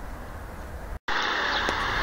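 Low outdoor rumble that cuts out abruptly for a moment about a second in, then a loud, steady droning noise starts: the faked 'Earth groaning' strange noise laid onto the recording.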